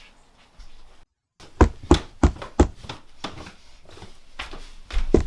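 Knocking on a door: four quick, evenly spaced knocks, with more knocks near the end.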